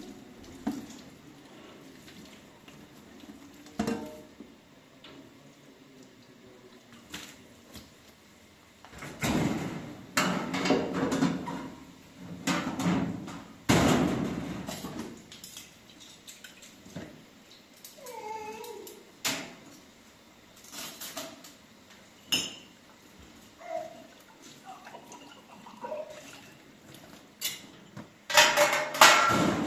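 Metal trays and dishes clattering and scraping as they are washed and handled at a kitchen sink, with scattered sharp knocks and a louder clatter near the end.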